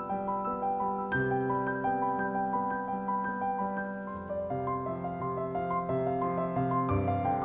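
Digital piano being played: an even stream of notes over sustained bass notes that change every few seconds.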